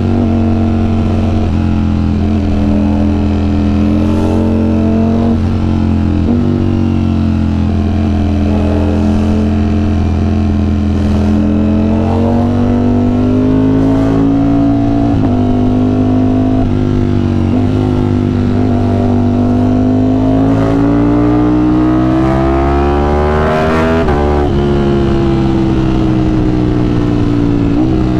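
Ducati Streetfighter V4 S's V4 engine running loud through an Arrow aftermarket exhaust. Its pitch wavers, then climbs steadily for several seconds to a high point near the end and drops back.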